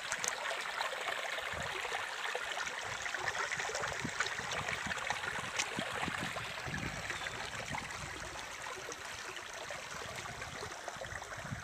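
Shallow, rocky stream flowing over stones: a steady sound of running water.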